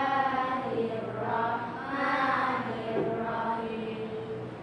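A group of schoolchildren chanting together in unison, with long held notes.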